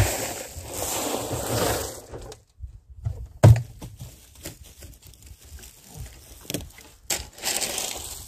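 Gravel crunching and scraping under a steel shovel as it is dug and spread, with one loud thump about three and a half seconds in and scattered small knocks, the scraping starting again near the end.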